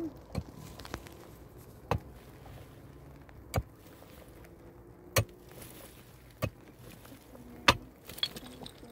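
A series of sharp knocks or strikes, about one every second and a half, over a low steady background.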